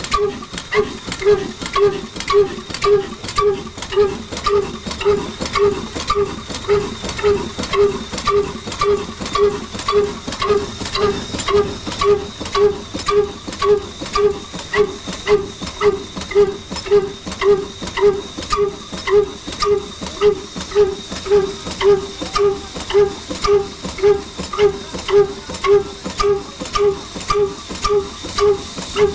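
A 'Super Modern 22' locally built Ruston Hornsby-type single-cylinder horizontal diesel engine running steadily, with a regular chuffing beat of about two a second over a hissing exhaust note.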